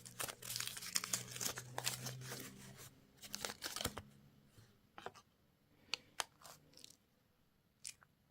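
A wrapper is torn open and crinkled for about four seconds, then a few separate light clicks and taps follow.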